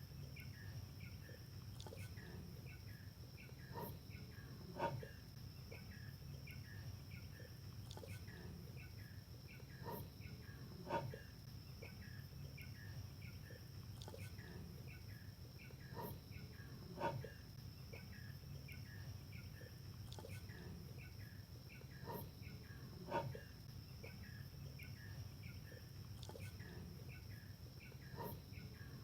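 A tiger yawning, with a short, louder vocal sound about once every six seconds as the same clip repeats five times, over steady, faint chirping of insects.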